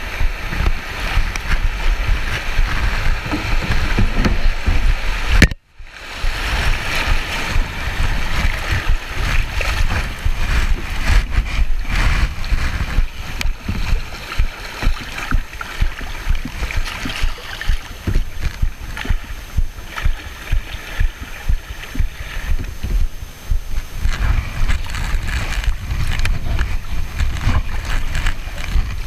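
Kayak paddling on a creek: creek water rushing and splashing around the hull and paddle blades, with a regular pulse of paddle strokes about once a second in the second half, and a low rumble of wind on the microphone. The sound drops out briefly about five and a half seconds in.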